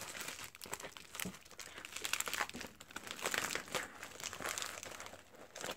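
Pink metallic plastic bubble mailer crinkling and rustling as it is pulled open and handled, a dense run of small crackles that eases off near the end.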